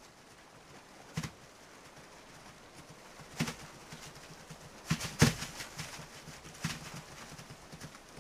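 Wildebeest hooves thudding on dry ground as the animals land and run down the bank: a few irregular knocks over a faint steady hiss, the loudest cluster about five seconds in.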